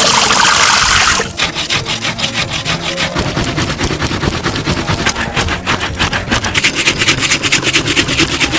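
A loud rush of noise in the first second, then fast, rhythmic rasping strokes of something being rubbed back and forth on a rough surface, like hand grating.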